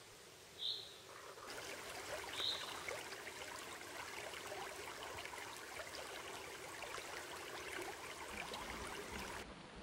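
A small forest creek, the Kirnitzsch, trickling and gurgling faintly; the water sound comes in about a second and a half in. Two short, high bird chirps sound in the first few seconds.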